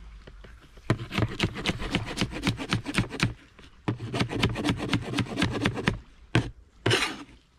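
A broad-bladed knife chopping scallions on a plastic cutting board: two quick runs of rapid knife strokes with a short pause between them, then one short, louder noise near the end.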